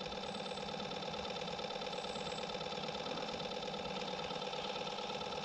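A small motor humming steadily at one even pitch.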